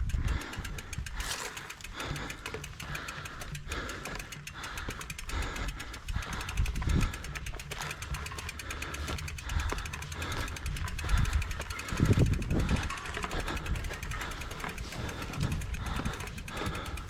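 Mountain bike rear freehub clicking rapidly as the wheel rolls with the pedals still, a noisy freehub that the rider means to replace with a quiet one. Under it runs an uneven low rumble, with a few heavier low thuds.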